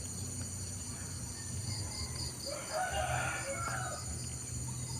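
A rooster crows once, for a little over a second, about two and a half seconds in, over a steady high-pitched drone of insects.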